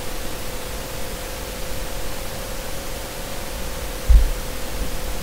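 Steady hiss of a microphone's noise floor with a faint steady hum. A single low thump about four seconds in.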